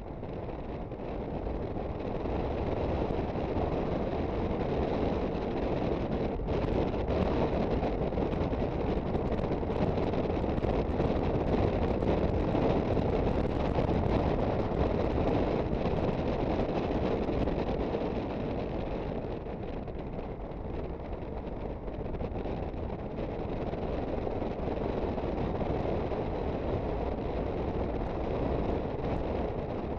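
Wind buffeting the microphone over the running engine of an Aprilia Sportcity Cube 250 scooter being ridden. The rush grows over the first few seconds, eases for a few seconds about two-thirds of the way through, then picks up again.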